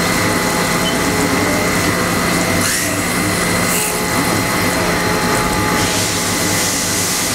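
Haas VF-3 CNC vertical machining center cutting an aluminum part under flood coolant: the hiss and splash of coolant spray with a steady high tone running through it, and a few brief louder spurts of hiss.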